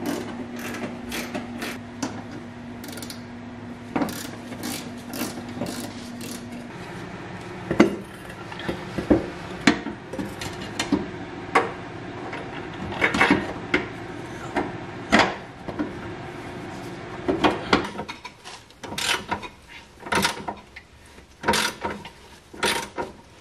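Hand wrenches and sockets working the bolts of a car's rear suspension during reassembly: a long run of irregular sharp metallic clicks, ratcheting and clanks. A steady low hum sounds under it for the first several seconds, then stops.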